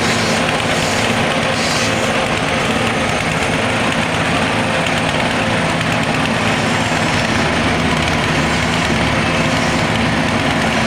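Mini rice husk crusher machine running steadily at constant speed, a loud, even mechanical hum with a noisy grinding rush.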